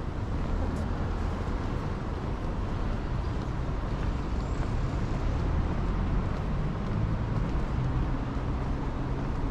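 Steady city street noise, mostly a low road-traffic rumble.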